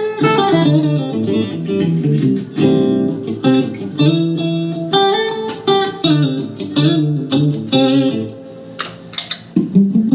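Electric guitar being played for a tone check: a melodic passage of plucked single notes and chords, thinning to a few sharp plucks near the end.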